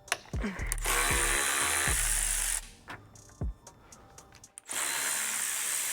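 Power tool running in two bursts of about two seconds each, spinning off the sway bar end link nuts. A thudding music beat plays underneath.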